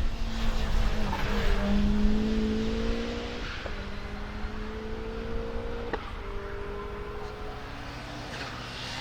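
Ford Escort RS1700T's turbocharged 1.8-litre four-cylinder Cosworth engine accelerating hard, its pitch climbing through the gears. There are two upshifts, a little over a third of the way in and again about two-thirds in, each with a sharp crack as the pitch drops. The sound grows fainter as the car pulls away.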